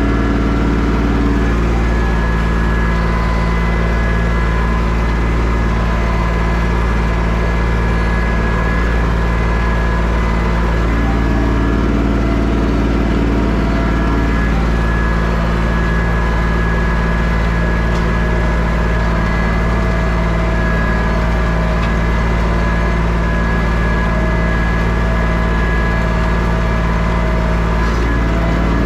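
Tractor engine running steadily under load while pulling a plow through the potato rows, with an even, unchanging engine note.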